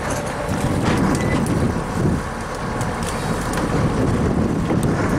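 Steady low rumble of a fishing trawler's engine mixed with wind noise on the microphone, with a few faint clicks.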